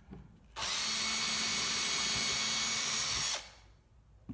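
Makita cordless drill running at a steady speed as it bores a hole into a wooden frame, starting about half a second in and stopping after nearly three seconds.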